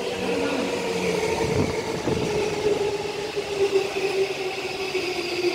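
Yokosuka Line electric commuter train pulling in along the platform, its motors whining in a slowly falling tone as it slows, with a couple of low knocks from the wheels on the rails.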